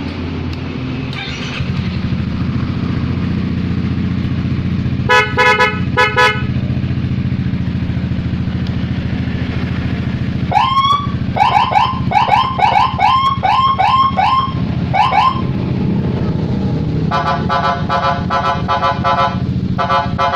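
Custom police-escort electronic siren fitted to a motorcycle, running through its tones over the idling engine. It gives three short horn blasts about five seconds in, a run of about nine quick rising chirps from about ten to fifteen seconds, and near the end a longer steady horn tone followed by another short one.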